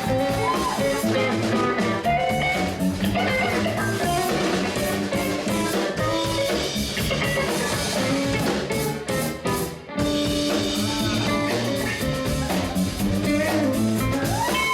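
Blues-rock music with guitar and drums, briefly dropping out about ten seconds in.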